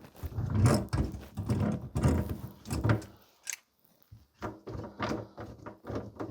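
Irregular knocks and clunks of things being handled under a kitchen sink while the drain clean-out is reached. They come thick for the first few seconds, pause briefly, then continue as separate knocks.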